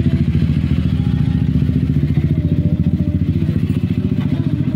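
A small engine idling steadily close by, with a fast, even pulsing beat.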